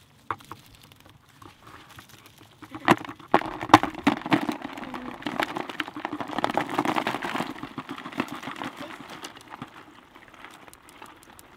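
Live crayfish dropping from a mesh trap net into a plastic bucket, their hard shells clicking and scrabbling against the bucket and each other. A dense clatter of many small clicks, busiest in the middle and thinning near the end.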